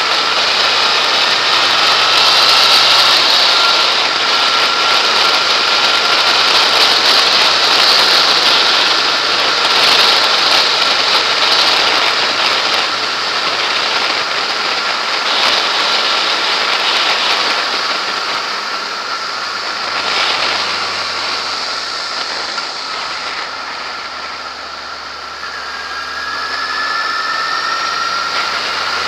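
Yamaha XJ6S inline-four engine running at road speed under heavy wind rush on the bike-mounted camera, with a steady engine whine. The engine eases off about two-thirds of the way through, then picks up again near the end with a rising whine.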